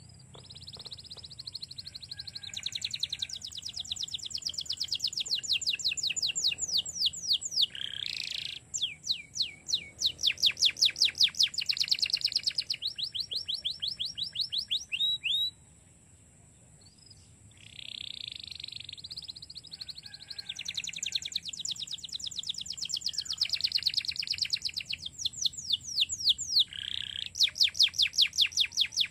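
Domestic canary singing long phrases of rapid trills and repeated high notes, with a pause of about two seconds about halfway through.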